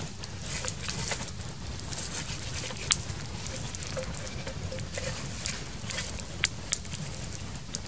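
Wood fire crackling and hissing as dry sticks burn in a clay pot stove, with a few sharp pops standing out.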